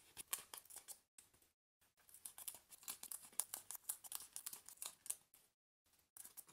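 A pointed plastic assembly tool and fingers working the tabs of a 3D paper puzzle piece into their slots: a run of small scratching, rubbing and clicking sounds of the tool against card, in bursts with brief pauses.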